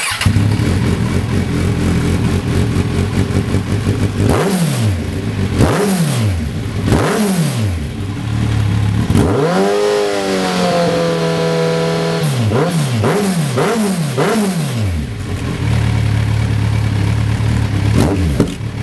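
A 2016 Kawasaki Z1000's inline-four engine running through a Lextek OP1 exhaust silencer, with the bike standing still. It idles, is blipped three times, is held at higher revs for about two seconds, is blipped four times in quick succession, then settles back to idle with one more short blip near the end.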